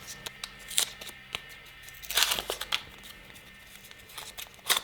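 Paper wrappers being torn and crinkled off razor blades by hand, in short irregular bursts, the loudest about two seconds in and near the end.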